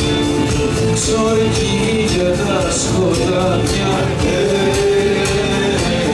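Live Greek folk-rock band playing an instrumental passage of a syrto: a bowed melody line over strummed acoustic guitar, bass and drum kit, with steady cymbal or tambourine strokes.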